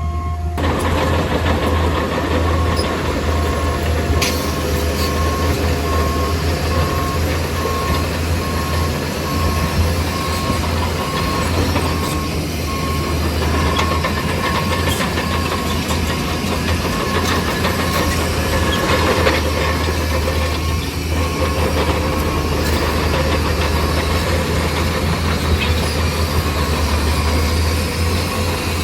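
Bulldozer's diesel engine running steadily under load, with a regular high beeping over it that breaks off for a moment about twelve seconds in.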